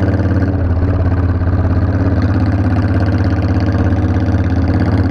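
Motorcycle engine idling steadily and loudly, with an even, throbbing exhaust pulse.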